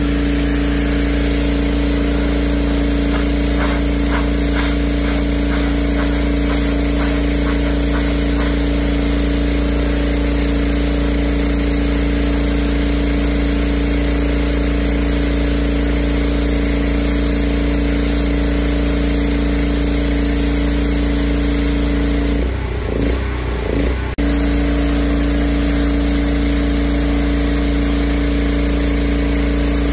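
Pressure washer running steadily, its motor and pump droning under the hiss of the jet on concrete. About three-quarters of the way through, the drone wavers and dips for under two seconds, then settles again.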